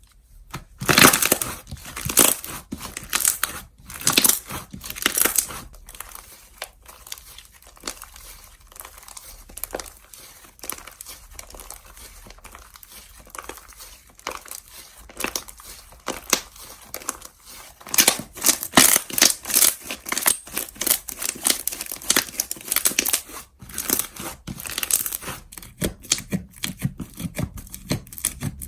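Slime being stretched, pressed and pulled apart by hand, making crackly, crinkly popping and tearing sounds in bursts, loudest near the start and again past the middle.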